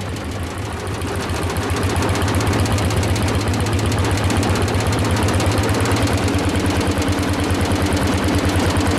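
Single-cylinder two-stroke diesel tractor engine chugging at a fast, even, steady beat while driving, a little quieter for the first second or so.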